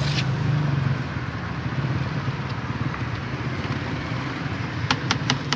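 An engine idling steadily with a low hum, and a quick run of sharp clicks near the end.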